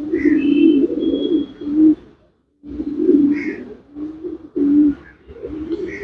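Racing pigeons cooing: low, rolling coos over and over, as a pigeon looking for its nest mate calls. There is a short break about two seconds in.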